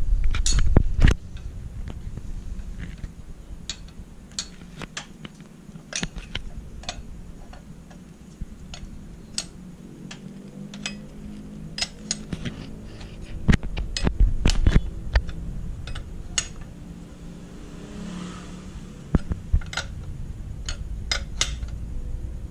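Scattered sharp metal clinks and taps of a spanner and hands against an aluminium Vespa engine crankcase while a crankshaft oil seal is pressed into its seat. A heavy low thump in the first second, and a cluster of louder knocks a little past halfway.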